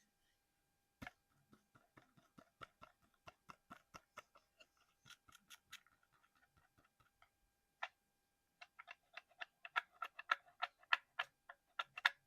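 Quick, light tapping on a small hard object. A run of taps at about four or five a second, a pause, then a faster, louder run near the end.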